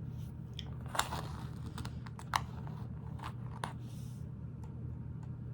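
Plastic Lego pieces clicking and crunching as they are handled and pressed on, with a handful of sharp clicks, the loudest about a second in and just over two seconds in, over a steady low hum.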